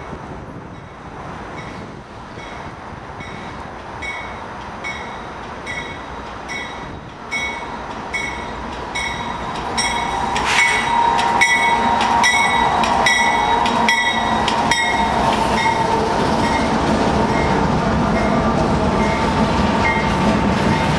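Canadian Pacific double-stack freight train passing behind two diesel locomotives, growing much louder about ten seconds in as the locomotives go by, then container cars rolling past. A bell rings in even strokes, about three every two seconds, throughout.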